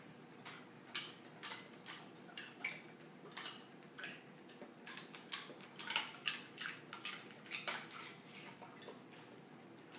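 Golden retriever eating ice cubes: faint, irregular crunches and clinks, about two a second, busiest around the middle.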